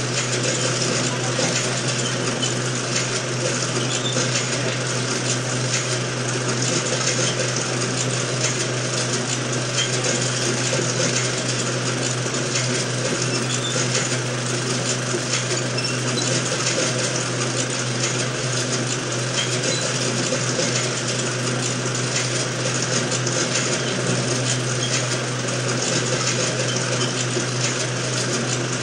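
16mm film projector running steadily, its mechanism whirring and clattering as the film is fed through, over a constant low motor hum.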